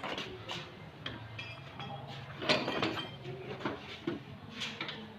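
Scattered knocks and metallic clinks as welding cables and their clamps are handled and dragged on a concrete floor, the loudest about two and a half seconds in, over a faint low hum.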